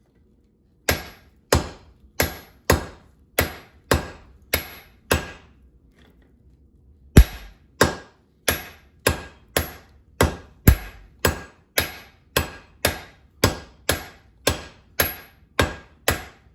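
Blacksmith's hand hammer striking steel on an anvil while forging a hammer eye drift, each blow with a metallic ring. About eight blows come first, then a pause of about two seconds, then steady blows about twice a second.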